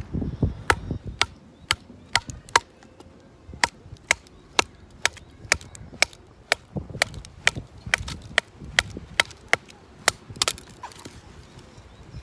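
Firewood being split by batoning: a wooden baton strikes the spine of a knife driven into the wood. It makes a long run of sharp wooden knocks, two to three a second, that stops shortly before the end.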